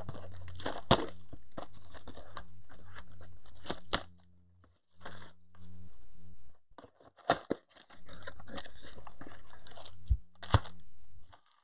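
Plastic wrapper crinkling and cardboard card boxes being handled, in irregular crackly bursts with a few sharp clicks, over a steady low hum.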